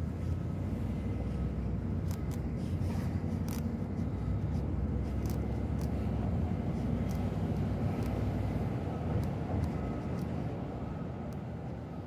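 Steady low rumble of city street traffic, with a few faint clicks and ticks over it.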